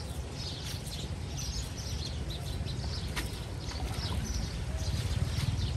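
Small birds chirping in quick, repeated short calls over a steady low rumble that grows slightly louder near the end.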